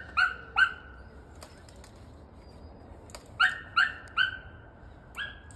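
An animal's short, high, sharp calls in quick runs of three: one run at the start, another about three and a half seconds in, and a single call near the end.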